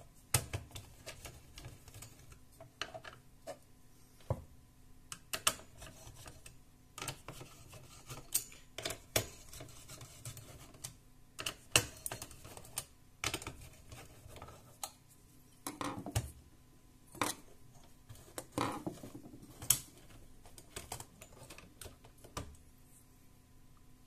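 Screwdriver working the screws of a CPU heatsink loose, with irregular sharp metal clicks and ticks, some louder knocks among them.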